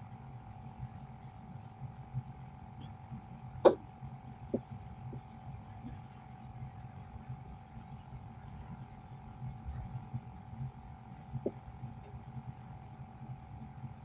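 Quiet room tone: a steady low hum with a faint higher steady tone, broken by a few short sharp clicks, the loudest just under four seconds in.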